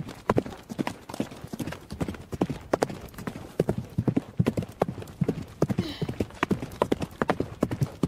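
Horse hooves clip-clopping in a quick, steady rhythm, about four strikes a second, a horse riding along.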